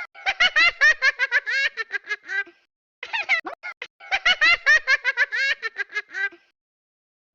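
A baby laughing in rapid high-pitched bursts: one long run of giggles, a short pause, then a second long run.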